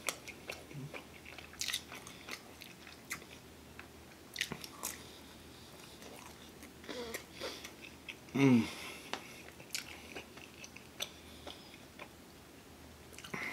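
Close-miked chewing of pepperoni pizza: wet mouth clicks and crunches of the crust scattered throughout. About eight and a half seconds in there is a short vocal hum that falls in pitch.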